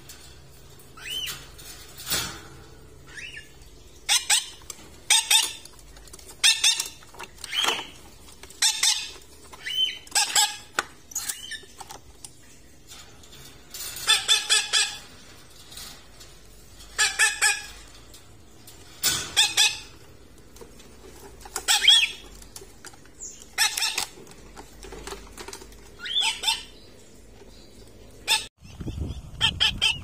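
Small pet parrots, a cockatiel and a lovebird, squawking in a wire cage: short harsh calls about one every one to two seconds, the protest of birds being caught by hand.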